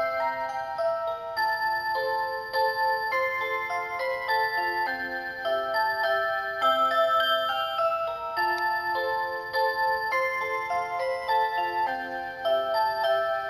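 A clock's built-in electronic melody playing a Christmas song: a bright tune of clean, pure tones with chords of several notes beneath it.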